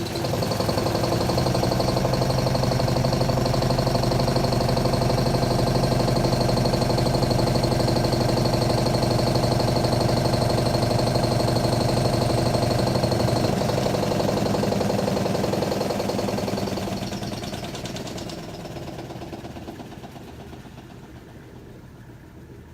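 Portable top-loading washing machine running its spin or drain motor with a steady hum, ahead of the rinse fill. The hum winds down and fades out about seventeen seconds in.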